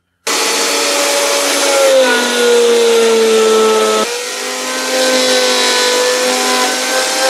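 Electric woodworking machine motor running at speed while a small MDF workpiece is pressed down and fed across the table. Its hum drops in pitch about two seconds in and changes again near the middle as the cut takes load.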